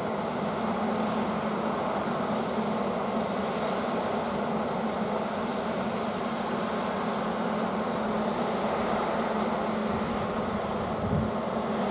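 A steady engine rumble with a constant low hum, and a brief low swell near the end.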